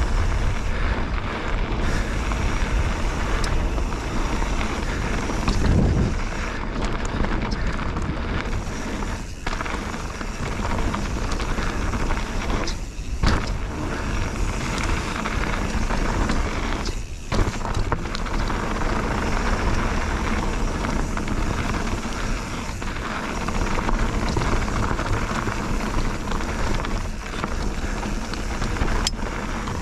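Bird Aeris 145 mountain bike riding fast down a rocky bike-park trail: a steady rushing noise of tyres rolling over stones, with a few sharp knocks from the bike over rough ground.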